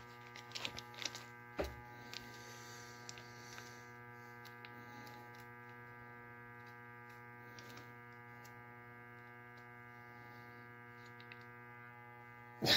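Steady electrical hum, with a few faint crinkles and clicks from a plastic sauce sachet being squeezed out by hand, mostly in the first two seconds.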